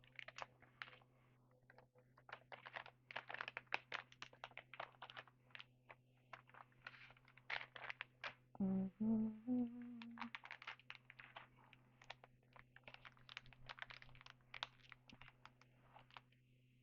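Trading cards being handled and flipped through, giving a faint, irregular run of light clicks and taps of card stock, with a short low hum about nine seconds in.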